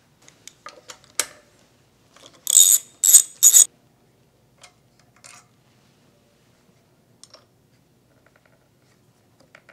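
Hand ratchet with a socket loosening the 10 mm bolts that hold an ignition coil. Scattered light clicks come first, then three short loud bursts of ratcheting about two and a half to three and a half seconds in, then a few faint ticks.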